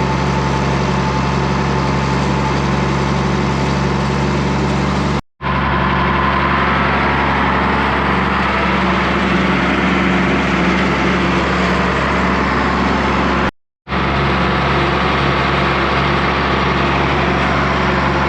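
Tractor engine running steadily while pulling field equipment. The sound drops out to silence twice, briefly, about five seconds in and again about thirteen and a half seconds in.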